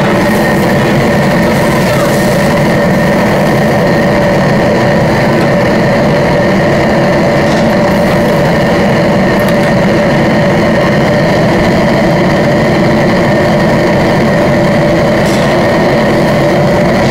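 Steady roar of a commercial wok stove's gas burner and blower running at full flame under a wok of broth. Near the start, a short hiss as liquid is poured into the hot wok.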